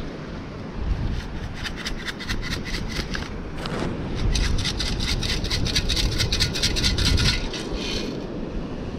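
Perforated metal beach sand scoop being shaken in quick, regular strokes, about five or six a second, with dry sand hissing and rattling through the basket. This sifts the sand away to leave the detected target in the scoop.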